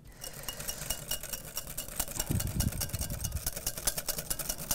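Wire whisk beating a thick emulsified Caesar dressing in a glass bowl, its wires clicking rapidly and evenly against the glass, with a brief low rumble about two seconds in.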